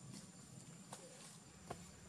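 Near silence: faint outdoor ambience with a thin steady high tone and three light, sharp clicks under a second apart, the last one the loudest.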